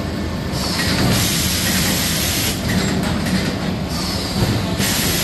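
Box-making machinery running steadily with a low rumble, and a hiss of air that cuts in and out every two seconds or so.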